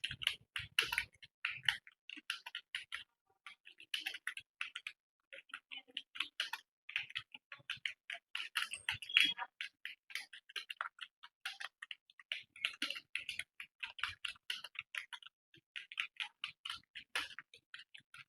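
Fast touch-typing on a computer keyboard: a rapid, uneven stream of key clicks, several a second, with a few brief pauses.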